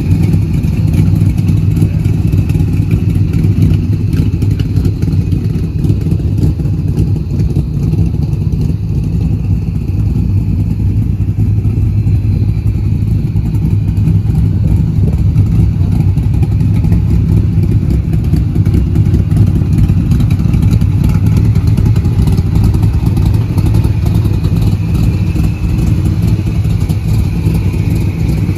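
1969 Corvette 427 big-block V8 idling steadily, loud and even, with no revving.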